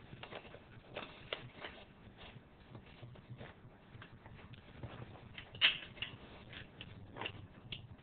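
Faint, scattered rustles and small clicks of a paper document envelope being handled, with one sharper crinkle about five and a half seconds in.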